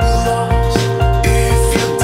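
Background music with a steady beat and bass line, about two beats a second.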